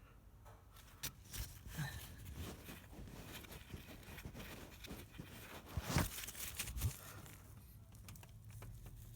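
Quiet handling noises: scattered small clicks and light scraping, with sharper knocks about a second in and again about six seconds in, over a faint low hum.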